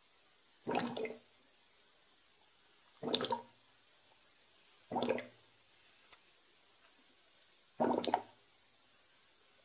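S-shaped twin-bubble airlock on a fermenting beer, bubbling as carbon dioxide pushes through the water in it: four short bursts of bubbling, two to three seconds apart. This is the sign of strong, active fermentation, sugars turning to alcohol and giving off CO2.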